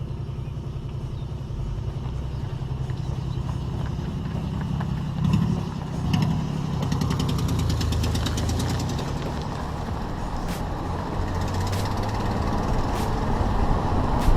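Car driving on the road, heard from a camera mounted outside the car: steady engine rumble with tyre and wind noise, and a rapid ticking for a couple of seconds in the middle.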